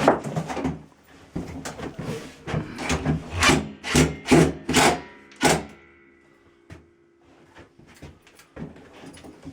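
Hand tool tightening screws into a wooden mounting board: short scraping, rasping strokes at about two a second. After them come a few faint clicks of handling.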